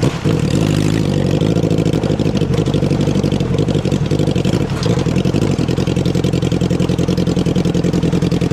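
650cc motorcycle engine in a John Deere riding lawnmower running under throttle. Its pitch rises in the first second, then it runs steadily.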